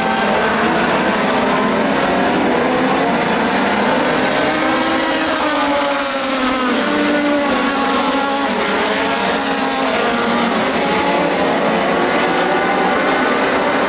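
A pack of dirt-track race cars running laps at speed, many engines overlapping, their pitches rising and falling as cars pass close by around the middle.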